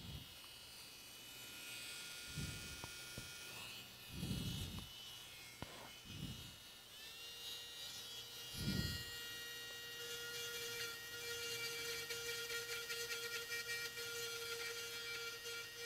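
Small electric rotary tool (the drill used on the graphics card board) whining steadily; about seven seconds in a lower, stronger whine starts up, rising briefly before it holds steady. A few soft low puffs are heard in the first nine seconds.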